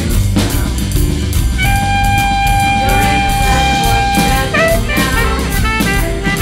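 Instrumental passage of a jazzy shuffle band song: drum kit and bass keep a steady beat under a saxophone-led melody. The melody holds one long high note through the middle, then breaks into quick phrases.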